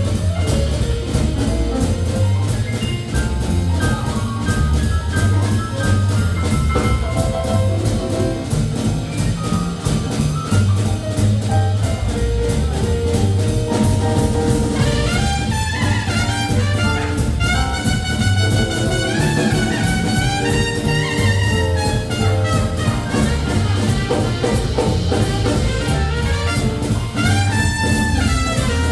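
Live swing band playing: trumpet and saxophone over a walking bass and a steady drum beat, with the horn lines coming to the fore about halfway through.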